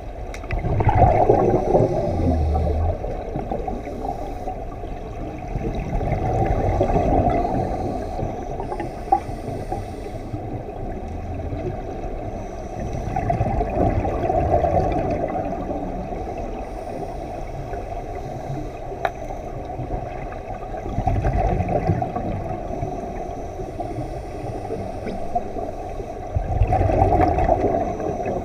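Scuba diver breathing through a regulator underwater: five rushes of exhaled bubbles, about one every six to eight seconds, with quieter bubbling between.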